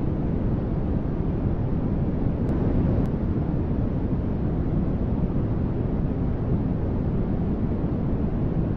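Continuous white-noise static for sleep, a steady deep hiss that is fullest in the low range and dull at the top, with no changes or events.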